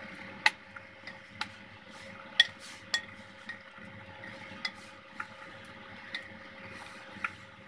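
Wooden spatula stirring chicken wings and chestnuts in a cooking pot, knocking against the pot about ten times at irregular intervals, the loudest about two and a half seconds in.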